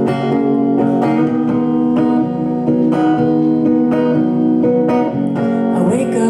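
Acoustic guitar strummed in a steady rhythm, chords ringing through an instrumental passage between sung lines of a song.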